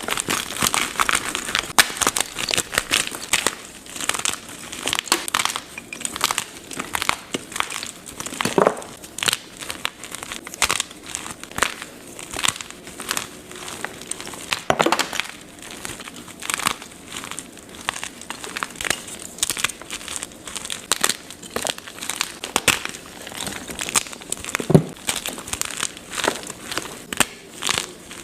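Blocks of gym chalk being crushed and crumbled, a dense irregular run of soft crunches and crackles with a few heavier crunches.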